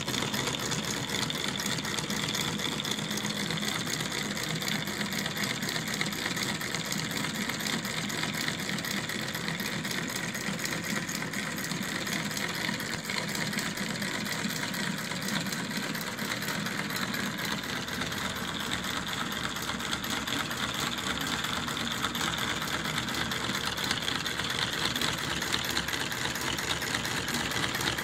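Model Stirling (hot-air) engine running on its burner flame, its flywheels and linkage making a fast, even mechanical clatter. The engine's fault has been repaired.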